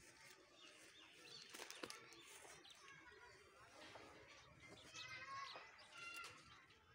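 Near silence: faint rustling of a flat-bean vine and a few light snaps as pods are picked by hand, with a short run of faint high calls about five seconds in.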